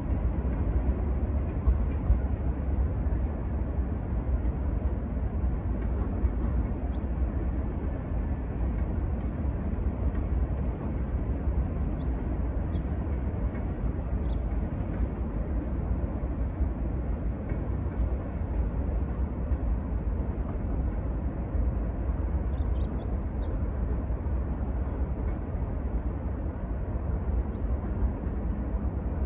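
Steady low rumble of a slow-moving Norfolk Southern manifest freight train's cars rolling across a stone arch bridge at a distance, with a few faint high clicks now and then.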